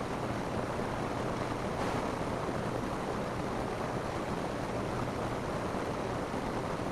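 Steady rain falling on a roof, a continuous even hiss of drops without distinct individual impacts.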